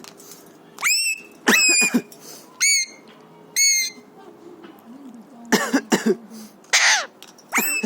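Alexandrine parakeet giving four short shrill calls that sweep up and hold, about a second apart, then, after a short pause, several raspy bursts as it imitates a human cough.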